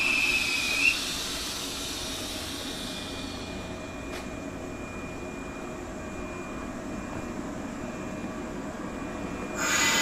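JR 115 series electric train at the platform: a brief high squeal in the first second ends with a sharp clack as it comes to a stand, then the standing train hums steadily with a faint thin whine and one click. Near the end a louder steady noise with several pitched tones starts up suddenly.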